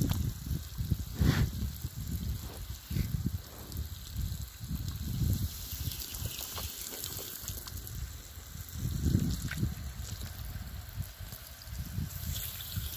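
Garden hose spraying water, a steady hiss that grows louder near the end, with irregular low rumbling bumps on the microphone.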